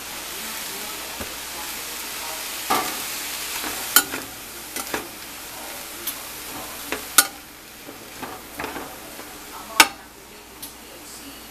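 Ground chuck with chopped onion and green bell pepper sizzling in a skillet as a metal utensil stirs and breaks up the meat, clinking and scraping against the pan several times. The sizzle is a steady hiss, a little quieter in the second half.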